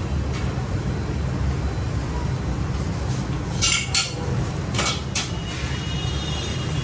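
Stainless steel bowls and a steel jug clinking a few times as milk is scooped and bowls are handled, over a steady low hum.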